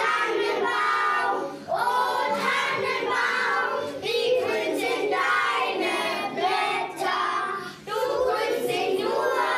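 A group of young kindergarten children singing together in phrases, with short breaks between lines.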